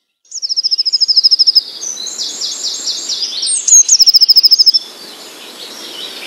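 Songbirds singing: loud, fast, high-pitched trilled phrases, one near the start and another around four seconds in, with quieter chirps between and after them over a faint background hiss.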